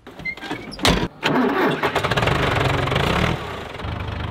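John Deere tractor engine cold-starting in deep frost: it cranks briefly, catches about a second in with a loud bang, runs fast, then settles to a steady idle about three and a half seconds in.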